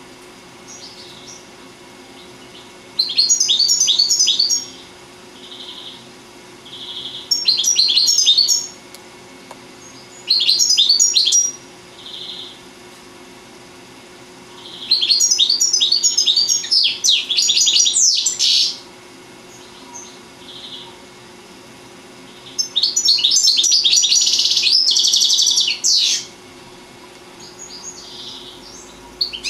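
European goldfinch singing: five bursts of fast, twittering song, each one to four seconds long, separated by pauses with a few short soft single notes.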